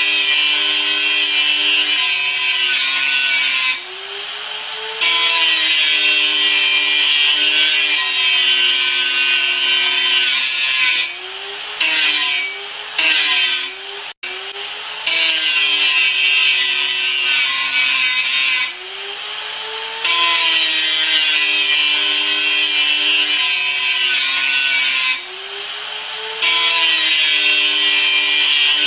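Electric grinder running and grinding: a loud, harsh grinding hiss over the motor's hum. About five times it breaks for a second or so, the hiss drops and the motor pitch dips and climbs back, then the grinding resumes.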